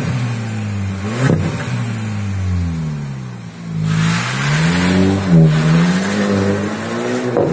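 Audi A3 sedan's engine through an aftermarket exhaust with quad tips: revved in blips while standing, then pulling away with revs climbing through about four to five seconds in. A few sharp cracks come at the peaks of the blips and again near the end.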